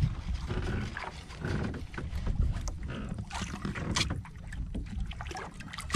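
Water sloshing against a small wooden fishing boat's hull, under a low wind rumble on the microphone, with scattered knocks and clicks of gear being handled on board.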